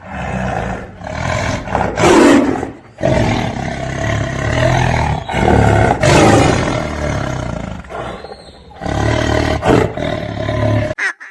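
Lion roaring in three long, loud stretches, cutting off sharply near the end.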